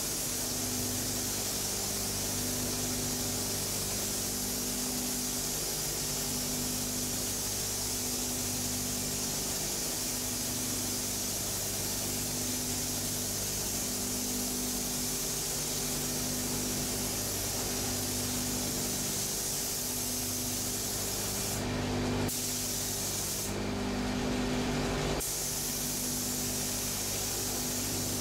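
Gravity-feed pneumatic spray gun hissing steadily as it sprays paint onto a car body, over a steady machine hum. The spray cuts off twice, briefly, a few seconds before the end.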